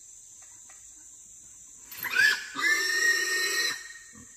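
Trapped wild hog squealing: a short rising squeal about two seconds in, then a longer, steady high squeal lasting about a second.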